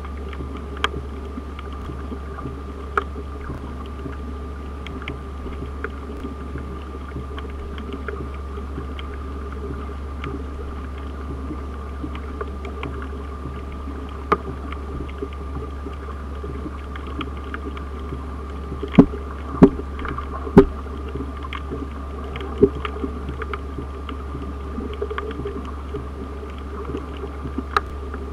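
Underwater sound picked up by a submerged camera: a steady low hum and hiss with a faint high tone, broken by scattered sharp clicks, three of them loud about 19 to 21 seconds in.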